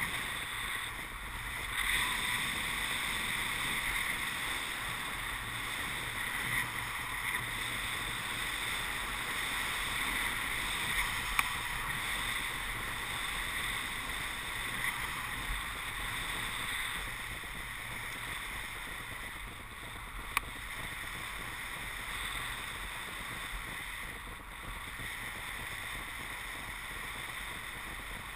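Steady rush of air past the camera microphone during a paraglider flight, with a couple of faint clicks.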